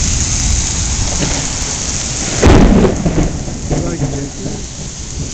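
Steady rain with thunder: a sudden loud thunderclap about two and a half seconds in, then rumbling that fades.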